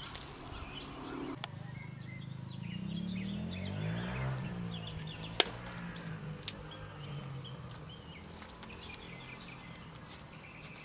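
Outdoor ambience with birds chirping and a low rumble that swells and fades through the middle. A sharp click comes about five seconds in.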